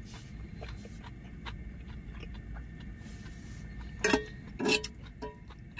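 Chopsticks picking at food in a cast-iron skillet, making small clicks and scrapes, with two louder ringing knocks against the pan about four seconds in. A low steady hum runs underneath.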